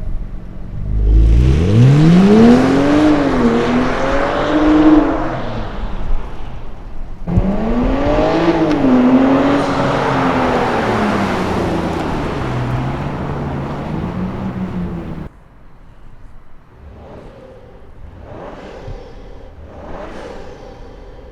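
BMW X5 50e's turbocharged inline-six, through a DCE Parts V2 aftermarket exhaust, accelerating hard twice. The engine note climbs steeply, dips briefly at a gear change and climbs again, then holds and slowly falls. About two-thirds of the way in it drops sharply to a much quieter engine note rising and falling in short pulses.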